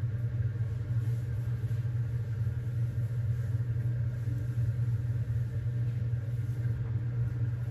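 A steady low hum that holds an even pitch and level throughout, with no other distinct events.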